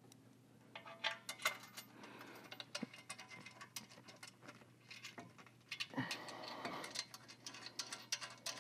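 Faint, irregular light metallic clicks and ticks as bolts with washers are started into a motorcycle exhaust muffler's mounting bracket, with the clicks coming thicker in the second half.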